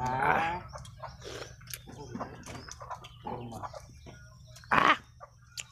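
Chickens clucking, with one loud pitched call at the start and a short harsh squawk near the end, among scattered small clicks.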